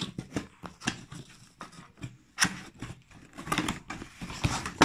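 Cardboard box of carbon-steel cake molds being opened and handled: an irregular run of clicks, taps and scrapes as the flaps are worked and the box is tipped, with a few sharper knocks about two and a half and three and a half seconds in and at the very end.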